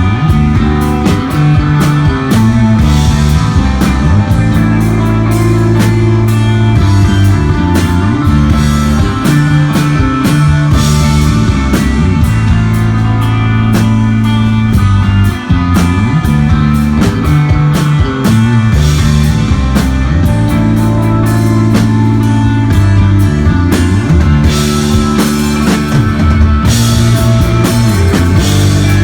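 A desert rock band playing live: electric guitar and bass holding long, heavy low notes over a drum kit with steady cymbal washes.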